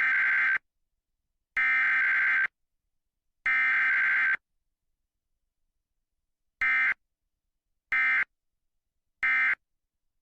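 Emergency Alert System test over the radio: three one-second bursts of the SAME digital header's data tones, then about two seconds of silence and three short end-of-message bursts, with no attention tone between them.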